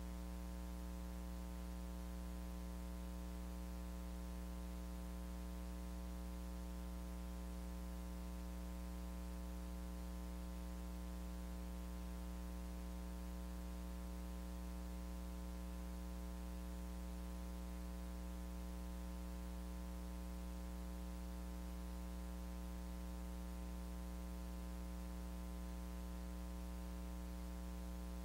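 Steady electrical hum with a buzzy edge, over constant hiss. It never changes, and no voices or stage sounds come through.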